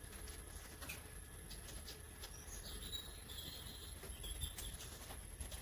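Faint scattered clicks and light scratchy rustling from hands working on the opened monitor's parts and wiring, with a brief high scraping sound about two and a half seconds in.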